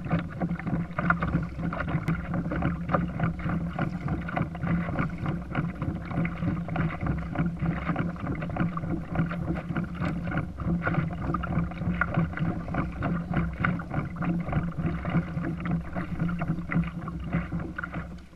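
Water rushing and splashing against the hull of a kayak under way: a steady churning noise with a low hum underneath.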